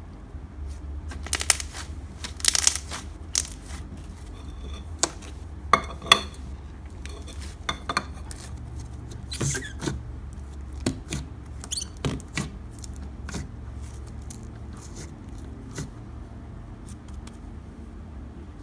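Hands squishing and stretching clear, bubbly slime, with irregular sharp pops and clicks as trapped air bubbles burst, thicker in the first half. A steady low hum runs underneath.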